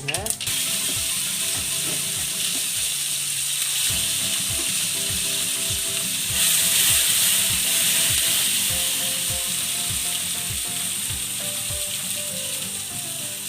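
Hot-oil tempering of spluttered mustard seeds sizzling steadily as it goes into the ground chutney. The sizzling gets louder for a couple of seconds about six and a half seconds in.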